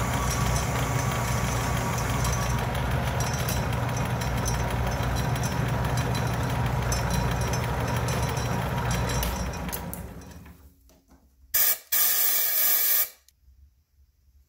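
Atlas metal lathe running steadily while taking a boring cut inside 2-inch hex stock, then winding down and going quiet about ten seconds in. Near the end come two loud bursts of hissing, a short one and then a longer one of about a second.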